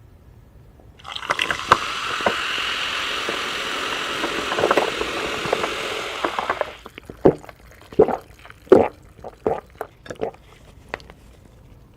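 Thick sauce, likely the cheese sauce, poured in a steady stream for about six seconds, then a series of sharp crunches as crispy fried chicken is bitten and chewed.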